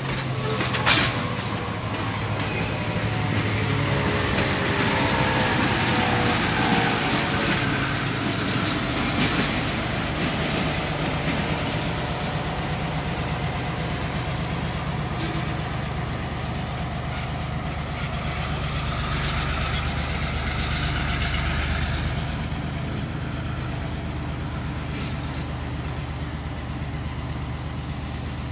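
N scale model trains running on the layout: a steady hum and rattle of the small locomotives and cars rolling over the track, with a pitch sliding down over the first several seconds as cars pass close by.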